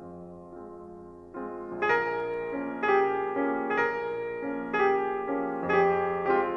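Slow solo piano music: soft sustained notes at first, then louder notes and chords struck about every half second to second from about a second and a half in, each ringing and fading.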